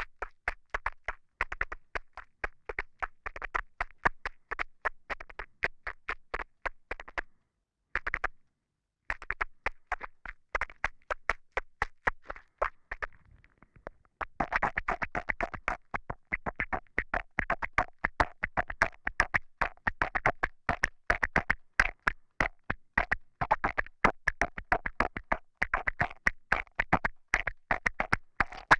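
Wet mouth and saliva clicks, a rapid run of sharp little clicks several a second, picked up very close through a clip-on lavalier microphone. The clicking stops briefly twice, once about a quarter of the way in and again near the middle.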